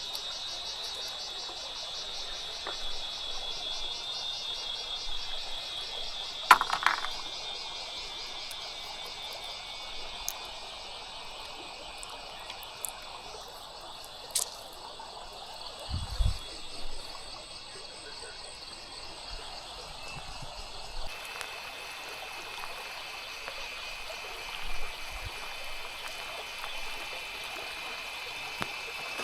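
Riverside ambience: running river water under a steady, high-pitched, pulsing chorus of calling creatures, with a few scattered clicks and one low knock. About two-thirds of the way in the chorus shifts lower in pitch.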